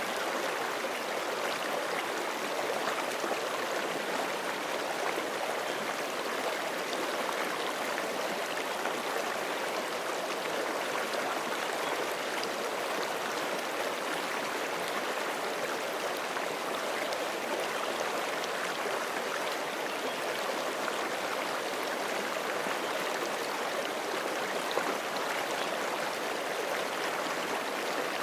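Forest creek running steadily over rocks, a continuous even rush of water with small splashes and gurgles.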